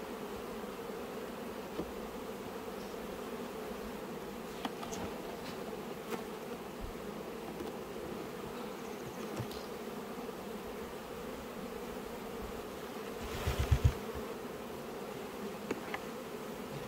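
Honeybees buzzing steadily around an open hive. A few light knocks, and a short run of louder knocks about three-quarters of the way through, come from the wooden hive box and frames being handled.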